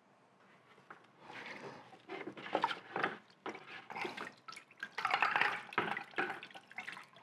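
A gloved hand sloshing in a bucket of oily water-and-degreaser solution, with irregular splashes and drips starting about a second in.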